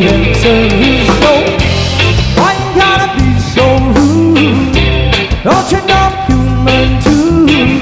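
Rock band music with a steady beat: drums, bass and electric guitar under a male singer whose notes slide up into held tones.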